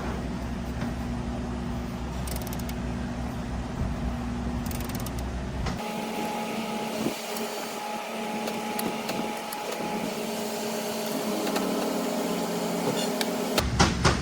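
Steady low mechanical hum of workshop background noise. It drops away abruptly about six seconds in, leaving a fainter steady tone with a few light ticks, then returns abruptly near the end.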